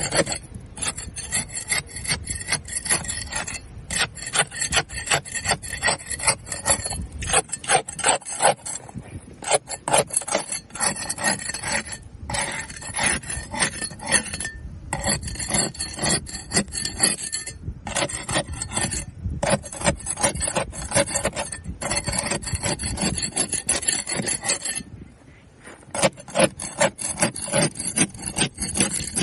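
Barnacles being scraped off a boat hull: a dense, crackly rasping of many rapid scrapes and cracks, in runs broken by short pauses.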